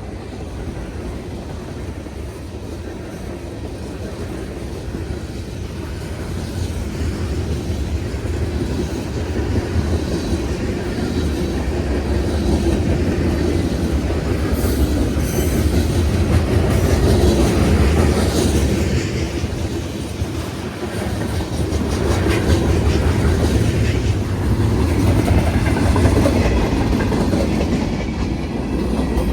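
Norfolk Southern freight train rolling past, its wheels clacking over the rail joints with a steady low rumble that grows louder over the first half.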